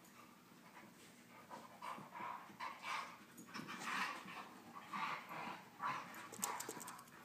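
Dogs panting hard while play-wrestling, a run of short quick breaths about twice a second, with a few sharp clicks near the end.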